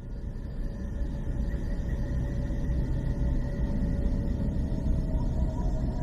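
A low, rumbling drone with a few faint steady tones above it, swelling in over the first couple of seconds and then holding steady. It is presented as the sound of planet Earth: radio emissions picked up in space and rendered as audible sound.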